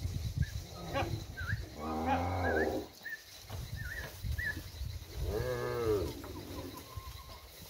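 Cattle mooing twice, each call about a second long; the second one rises and falls in pitch.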